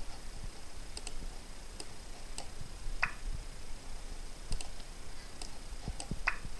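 Sparse light clicks, about ten at uneven intervals over a low steady hiss; two of them, midway and near the end, carry a brief chirp.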